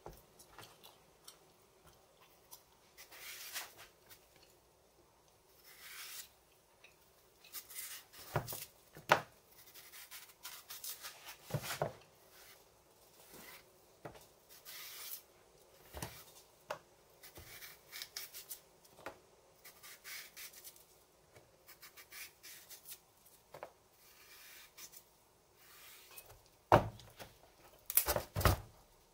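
Kitchen knife peeling green matooke (East African cooking bananas): irregular short scraping and rubbing strokes of the blade through the peel, with a few sharp clicks and knocks, the loudest near the end.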